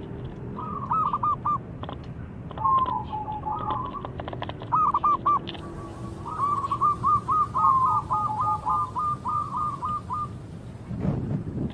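Zebra dove cooing in short phrases of a few notes, then a long, fast, rolling run of notes from about six to nine seconds in. Small birds chirp faintly in the background, and there is a brief low rumble near the end.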